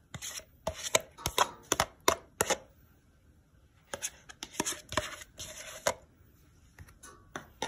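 Quick sharp taps and clicks of plain yogurt being scooped out of a plastic tub onto spiced chicken strips in a plastic bowl. The taps come in two runs, with a pause of about a second between them, and a few more come near the end.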